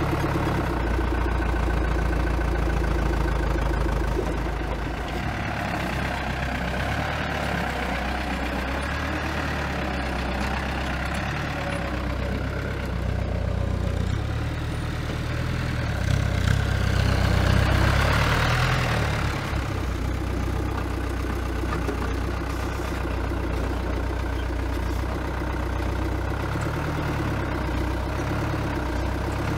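Forklift engine running steadily at a low pitch, growing louder and brighter for a few seconds a little past the middle.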